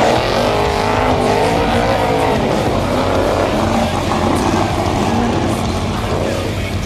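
Class 8 off-road race truck's engine revving hard, its pitch climbing and dropping several times.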